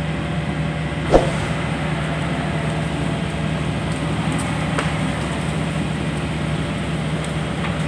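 Diesel engine of heavy earthmoving equipment running steadily, with one short sharp knock about a second in.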